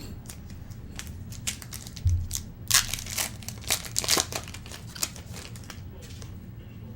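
A trading-card pack wrapper being torn open and crinkled, with a dense run of sharp crackles in the middle few seconds.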